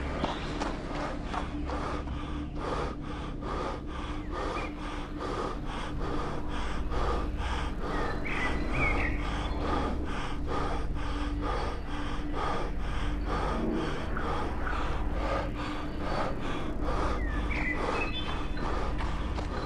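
A man panting hard while running, short gasping breaths mixed with quick footfalls at about three a second, with a few bird chirps.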